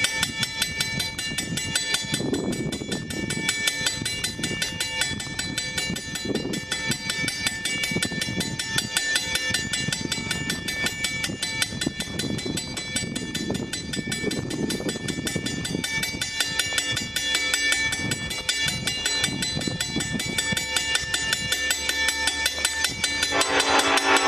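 Railway level-crossing bell ringing rapidly and without a break, warning of an approaching train. Near the end an EMD SD70M-2 locomotive's horn starts to sound as the train comes up to the crossing.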